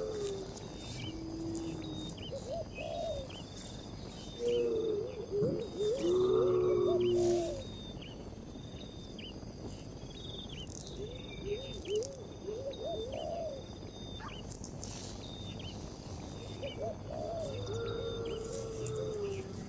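Low, repeated bird calls in groups, loudest about six to seven seconds in, over a steady insect chorus and a running series of short high chirps.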